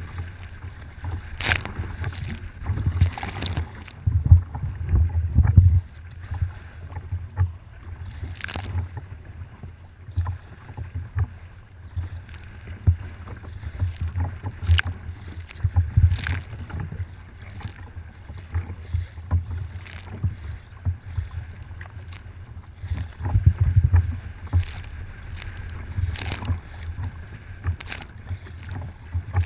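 Choppy water slapping and splashing against a kayak's hull in irregular sharp splashes every few seconds, over a steady low rumble of wind and water on the microphone.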